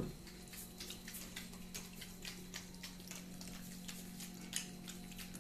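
A string of faint, irregular small clicks, several a second, over a steady low hum.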